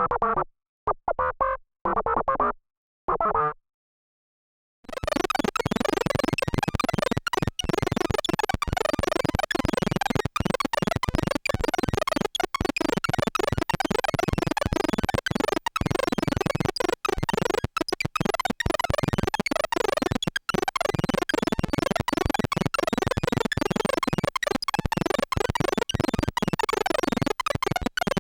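ARP 2600 synthesizer sound effects. First a few short, choppy robot-voice phrases with a goofy wah quality. Then, after a brief gap about five seconds in, dense chaotic sawtooth glitching like a malfunctioning retro computer, a rapid stuttering stream full of tiny cut-outs.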